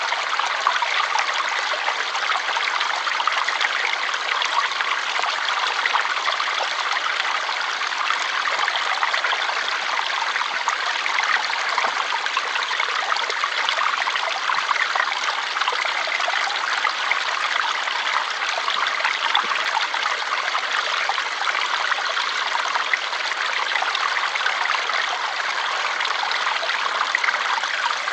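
Water flowing steadily in a stream, an even rushing with fine splashing and trickling and no breaks.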